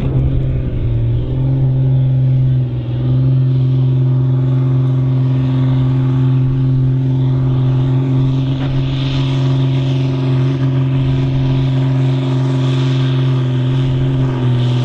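Fendt Favorit 926's six-cylinder diesel engine running flat out under heavy load as the tractor drags a pulling sled. Its pitch climbs over the first second or two, then holds steady as the engine labours against the sled.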